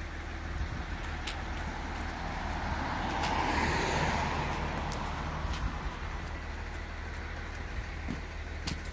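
A car passing on the adjacent road: its tyre and road noise swells to a peak about four seconds in and then fades away. Scattered footsteps crunch in dry leaves throughout.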